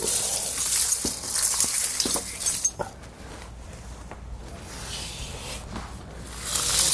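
Steel-link snow tire chain jingling and clinking as it is dragged across the floor and fed around behind a car tire. Loudest through the first couple of seconds and again near the end, with a few sharp clinks in between.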